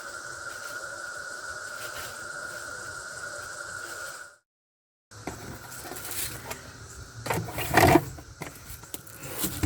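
Stihl MSA 120 C battery chainsaw running with a steady whine, which stops abruptly about four seconds in. Then come rustling and irregular knocks, the loudest a thud near eight seconds in.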